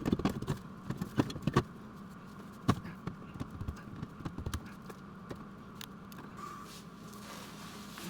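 Scattered metallic clinks and knocks of hand tools and parts being handled, a few sharp ones in the first three seconds, over a steady electrical hum.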